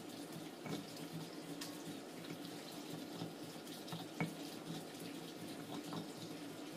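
Stone pestle grinding red chillies and shallots in a flat granite mortar: a faint, steady scraping and crushing, with a few light knocks of stone on stone, over a low steady hum.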